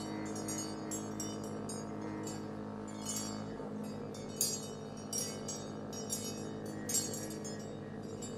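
Quiet instrumental music: a steady low held chord with irregular bright, high metallic tinkling and clinking over it, in the manner of wind chimes.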